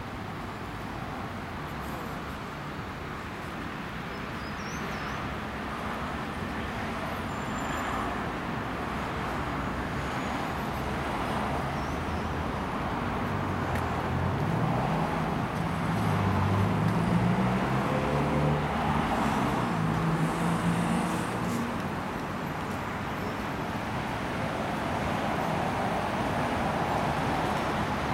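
City road traffic: a steady wash of tyre and engine noise from passing cars. Midway through, one vehicle's engine passes close and the noise swells before easing off again.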